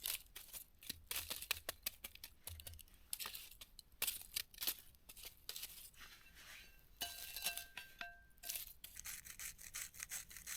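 Quick rustling, crinkling and scraping handling noises from cooking gear and a plastic bag of batter, with a short ringing squeal about seven seconds in.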